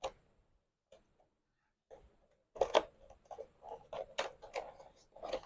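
A cardboard keyboard box being opened by hand: a click at the start, then, from about halfway, a run of irregular clicks and short rustles as the flaps and packaging are handled.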